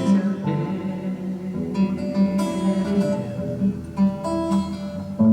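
Acoustic guitar strummed and plucked in chords, an instrumental stretch with no singing, with a louder strum near the end.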